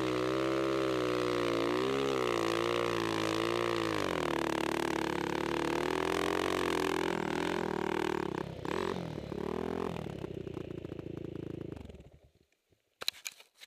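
Honda 450 four-stroke single-cylinder snow bike engine running, its pitch rising and falling with the throttle for the first few seconds, then holding fairly steady before turning uneven and fading out near the end. A brief sharp clatter follows.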